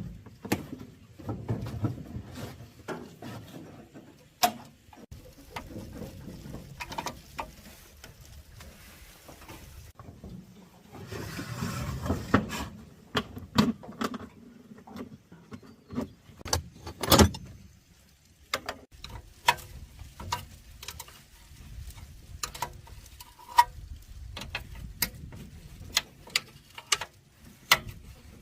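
Irregular clicks, knocks and clatter of metal parts and hand tools being handled while working on a Honda GX200 small engine, with a longer stretch of scraping noise about eleven seconds in and a sharper knock a few seconds later.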